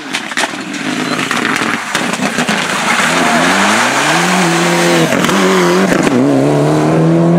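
Mitsubishi Lancer Evolution rally car's turbocharged four-cylinder engine at full throttle as the car approaches and passes. It grows louder over the first few seconds, then climbs in pitch, dipping briefly twice as it shifts up, with tyre hiss on the wet tarmac.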